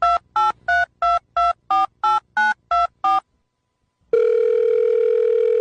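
Touch-tone telephone keypad beeps: ten quick dual-tone beeps, about three a second, as a number is dialed. After a second's pause a steady phone tone sounds for about two seconds, like a call ringing out.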